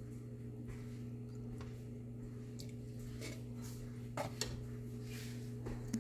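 A steady low hum, with a few light metal clinks of a ladle against a steel serving karahi about four seconds in and again just before the end, as the curry is dished out.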